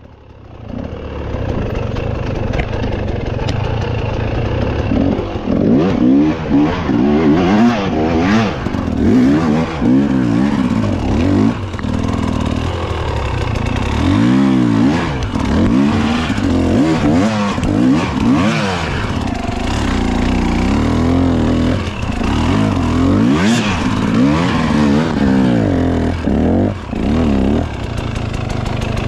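Off-road motorcycle engine revving up and down over and over, its pitch rising and falling every second or two, with a few short clatters.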